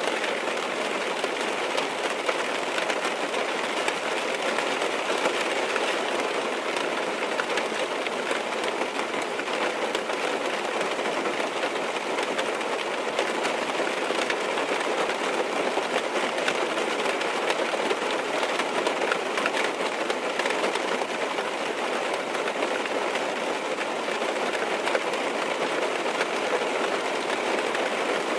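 Steady rain falling on a car's roof and windows: an even hiss laced with many small drop ticks, unchanging throughout.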